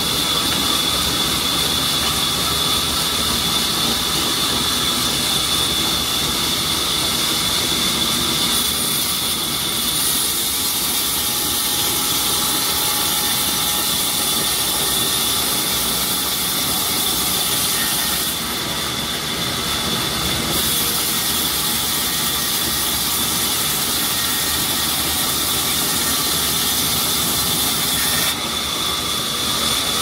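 Large vertical band saw running and ripping through a mahogany log: a steady high whine over a loud hiss, with the hiss easing off briefly three times.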